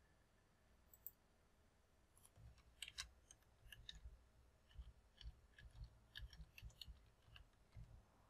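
Faint computer keyboard typing: an irregular run of keystrokes, after a single mouse click about a second in.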